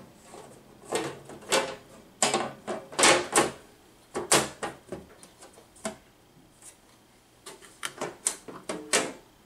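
Sheet-metal cover being fitted back onto a power supply's metal chassis: a run of sharp clanks and knocks of metal on metal as it is lowered, slid and seated, with a quieter spell in the middle.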